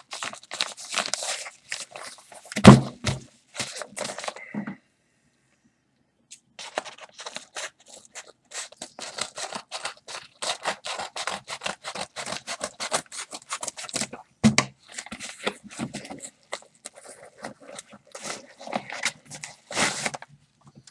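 A mail package being torn open by hand: continuous crinkling, tearing and scraping of packaging, with a sharp thump about three seconds in and a lighter knock near the middle, and a brief break about five seconds in.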